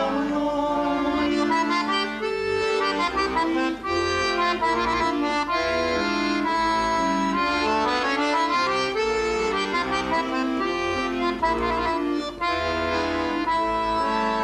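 Accordion playing an instrumental passage of a folk tune, a melody of quick stepping notes over bass notes.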